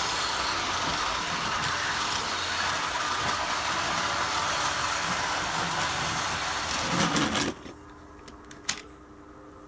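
Battery-powered toy train running on plastic track, a steady mechanical running noise of its motor and wheels. It cuts off abruptly about seven and a half seconds in as the locomotive is taken in hand, followed by a single sharp click.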